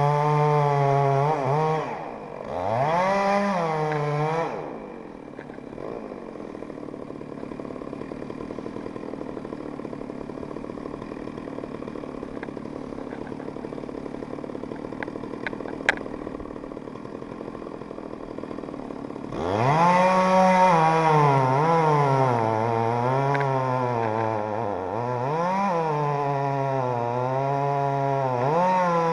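Two-stroke chainsaw at full throttle, dropping off, blipping once, then idling for about fourteen seconds. It revs back up near the end, its pitch dipping and rising under load as it cuts wood.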